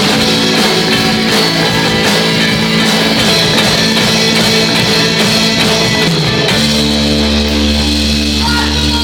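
Rock band playing live, with guitars. About six and a half seconds in, the band moves from busy playing to long held chords over a steady bass note.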